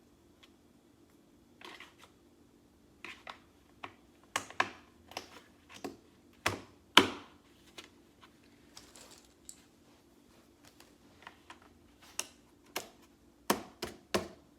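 Plastic parts of an IKEA VESKEN shelf unit being pushed and snapped together: irregular sharp clicks and knocks, the loudest about seven seconds in.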